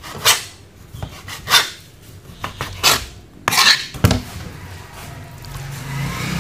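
Kitchen knife chopping raw chicken breast into chunks on a plastic cutting board: irregular sharp knocks of the blade on the board, about eight in the first four seconds, then the chopping stops.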